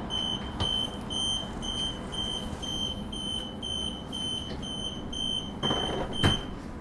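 Door-closing warning beeper on a Transperth Bombardier B-series electric train, beeping about twice a second in one high tone. It stops near the end with a single sharp knock as the doors shut.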